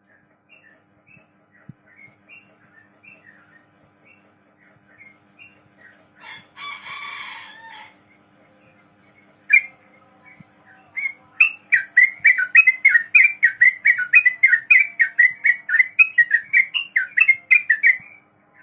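Yellow-vented bulbul (trucuk) singing: scattered soft chirps, a brief harsher call, then a long fast 'ropel' run of loud repeated whistled notes, about four a second, from about eleven seconds in until near the end.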